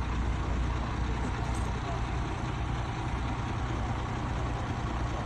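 A heavy vehicle's engine running steadily: a constant low rumble under an even rushing noise.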